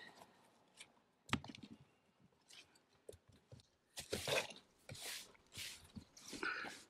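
Gritty scraping and crunching of crumbled roofing debris being cleared out of a cut-down patch of flat roof by hand and with a flat shovel. A sharp knock comes about a second in, then a run of scrapes about every half second in the second half.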